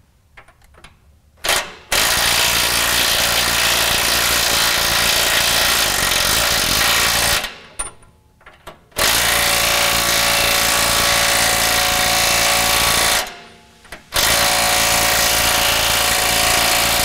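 Impact wrench hammering as it runs in a 7/8-inch track bar bolt: three runs of about four to six seconds each, with short pauses between, the last carrying on past the end.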